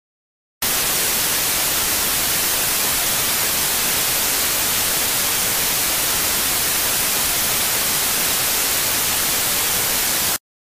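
Loud, steady television static hiss, heaviest in the high range. It switches on abruptly about half a second in and cuts off just as abruptly shortly before the end.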